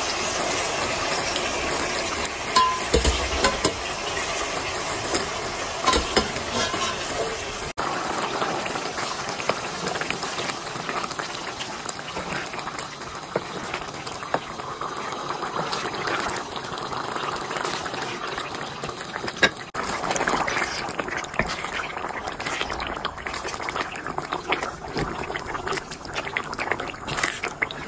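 Chickpea masala bubbling and sizzling in a metal pan while a wooden spatula stirs through it, with scattered light knocks and scrapes of the spatula against the pan.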